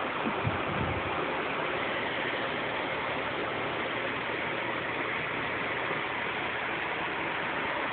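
Box fan running with a steady, even whoosh, with a couple of soft brushing knocks in the first second.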